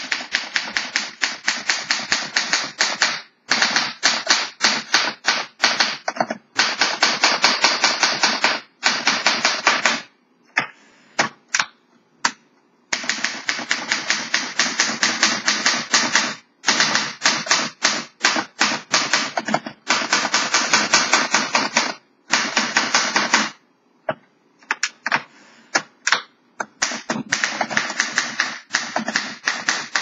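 1950 Underwood Leader manual portable typewriter being typed on, just refurbished: quick runs of key strikes, several a second, broken by short pauses and a few slower stretches of single strokes.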